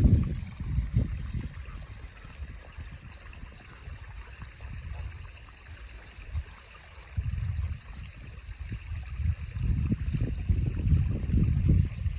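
Shallow river babbling steadily over stones, with irregular low rumbling that is strong about a second in and again from about seven seconds in.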